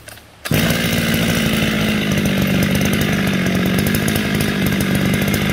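Shindaiwa two-stroke brush cutter engine starting on a test run: it catches suddenly about half a second in and then runs steadily at an even pitch, smooth, without missing.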